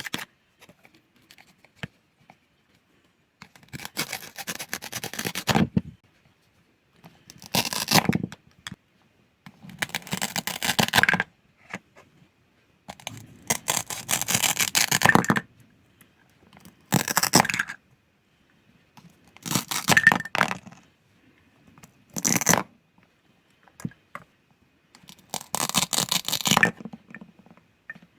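Toy food being cut apart, each cut a crackly tearing sound lasting one to two seconds, about eight cuts with short pauses between.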